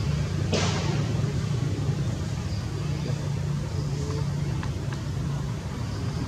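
Steady low motor hum, with a brief hiss about half a second in.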